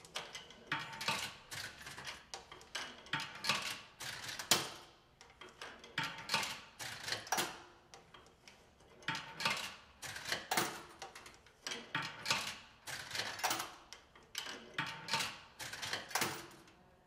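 Coins dropped one at a time into a drink vending machine's coin slot, each clinking and rattling down through the coin mechanism as the credit adds up. The clinks come in clusters about every three seconds.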